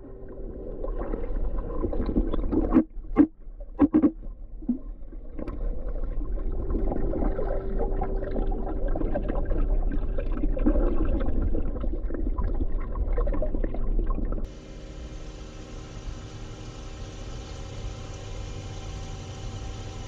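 Muffled underwater sound of a swimming pool: churning water and bubbles with a low rumble, and a few sudden thumps about three to four seconds in. About fourteen seconds in it changes abruptly to a quieter, steady underwater hum with several steady tones.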